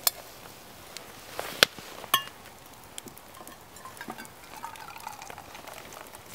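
A soot-blackened metal camp pot with a wire bail handle is set down on a log, giving a few sharp knocks and clinks in the first two seconds. The last clink rings briefly.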